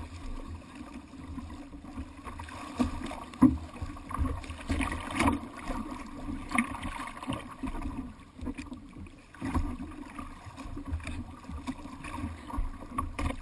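A jet ski's engine idles with a steady hum while water slaps and sloshes against its hull, with buffets of wind on the microphone. A sharp knock comes about three and a half seconds in.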